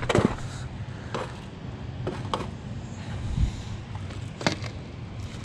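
A landed crappie flopping on the stones of a rocky bank and being picked up by hand: a few scattered light knocks and clicks over a steady low hum.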